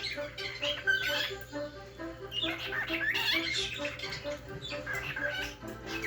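Cockatiel chirping and squawking in a quick string of short calls, over faint background music.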